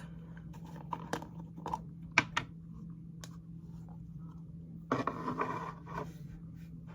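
Slime and its small plastic container being handled: scattered light clicks and taps, then a brief scraping rustle about five seconds in.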